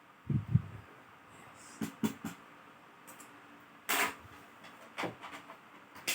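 Laptop parts and small tools being handled during disassembly: two dull thumps just after the start, then scattered light clicks and taps, the sharpest about four seconds in.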